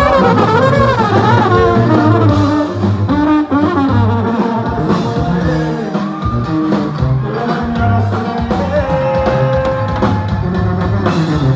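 Live band music: guitars and bass playing a song, with a man's singing voice over them.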